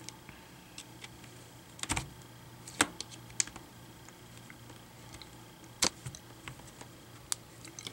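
Plastic snap clips of an Acer C720P Chromebook's screen bezel and touchscreen assembly popping loose as a hobby knife is pried along the seam: an irregular run of sharp plastic clicks, about five louder ones among faint ticks.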